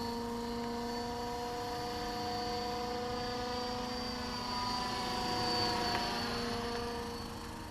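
RC scale EC145 helicopter running in flight, its rotor and motor making a steady whine. It grows a little louder about five seconds in, then drops away near the end.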